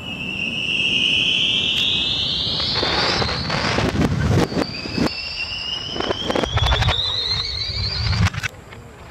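Aerial fireworks display played backwards: two long whistles from whistling shells glide upward, mixed with bangs and crackling that swell in and stop abruptly, the last cutting off near the end.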